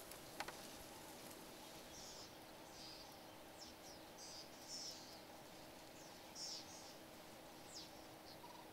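Near-silent ambience with faint, scattered short high-pitched bird chirps, several coming through the middle of the stretch.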